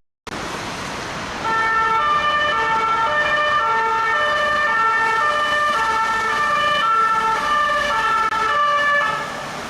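Electronic two-tone siren alternating between a high and a low note about twice a second, starting about a second and a half in over a background hiss.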